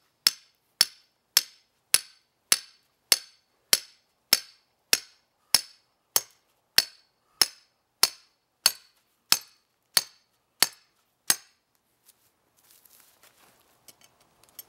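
A hammer driving a half-inch steel rebar stake into the ground: sharp metal-on-metal blows with a short ring, steady at a little under two a second, about nineteen in all, stopping a few seconds before the end, followed by a few faint scrapes.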